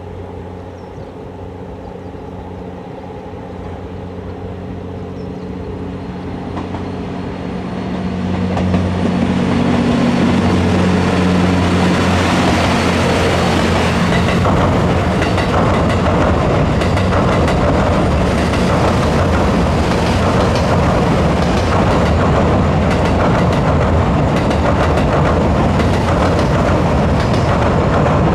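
The JR West 87 series diesel-hybrid train approaches, its engine drone growing steadily louder with several fixed low tones. About nine seconds in, the loud rolling noise of its wheels on the rails takes over as the cars pass close by on a steel bridge, and it stays steady.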